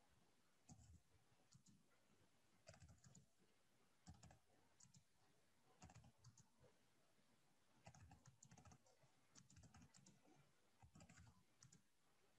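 Very faint typing on a computer keyboard: short runs of keystrokes with brief pauses between them.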